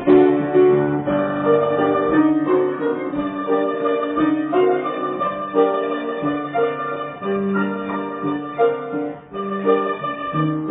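Azerbaijani tar, a long-necked plucked lute, playing a melody in a steady run of plucked notes.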